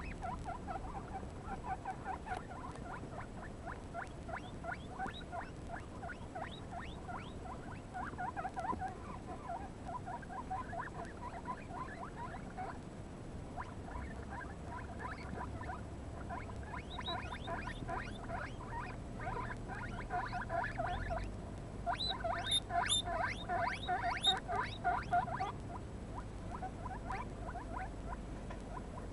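Young guinea pigs squeaking: an unbroken run of short, rising squeaks, several a second, getting louder and higher-pitched for a few seconds about three-quarters of the way through.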